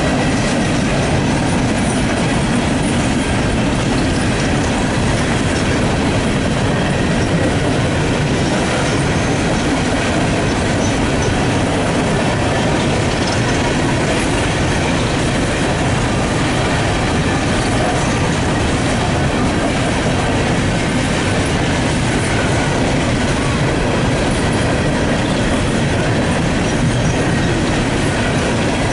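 Empty coal hopper cars of a CSX freight train rolling past close by: steel wheels on rail making a steady, loud rumble and rattle.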